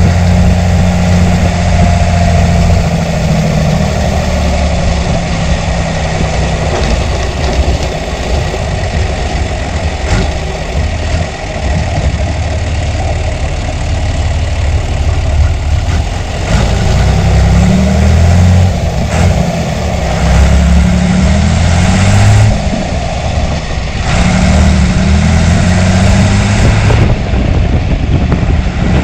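John Deere 3350 tractor's six-cylinder diesel engine running. It holds steady at first, then its speed rises and falls several times in the second half.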